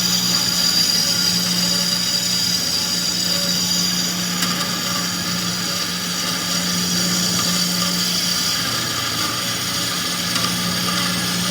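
Grob vertical band saw running with its blade cutting through thick steel: a steady motor hum under a constant high-pitched blade whine, cutting smoothly.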